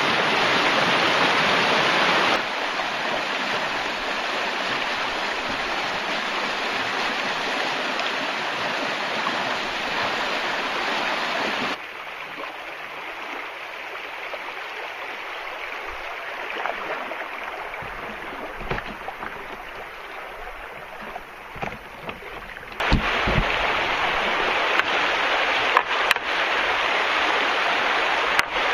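River water rushing over rocky rapids and swifts, a steady noise that jumps abruptly in level a few times. A quieter stretch in the middle carries a few low knocks.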